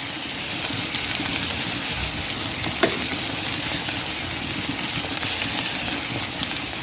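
Swai fish fillets sizzling steadily as they saute in hot vegetable and olive oil with onion chives, with a short tap about three seconds in.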